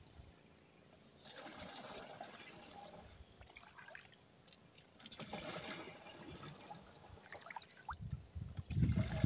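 Paddy water sloshing and trickling as a plastic jug is dipped into a flooded rice field and lifted out full, with louder low thuds near the end.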